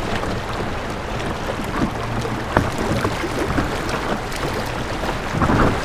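River current rushing and lapping around a paddleboard: a steady wash of water with a few sharp ticks and a brief louder surge near the end.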